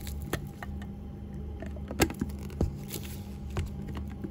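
Sharp plastic clicks and taps of a PPSU drinking cup's white lid being fitted and twisted onto the bottle, a few separate clicks with the loudest about two seconds in.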